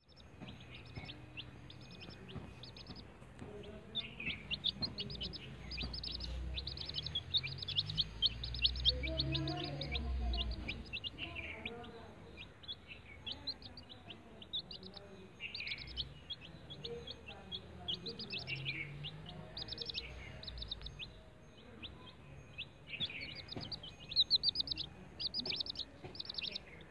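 Domestic chicken chicks peeping: rapid runs of short, high, falling peeps from several chicks at once, coming in bunches and loudest near the end. A low rumble sits underneath at times.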